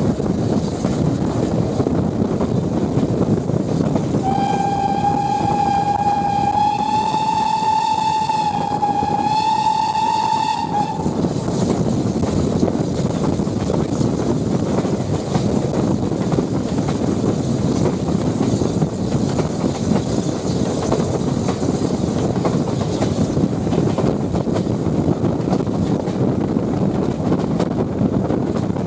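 Steady rumble of a carriage running on the rails behind a BR Standard 9F steam locomotive, with the locomotive's steam whistle blowing one long note of about seven seconds starting about four seconds in, wavering slightly in pitch before it stops.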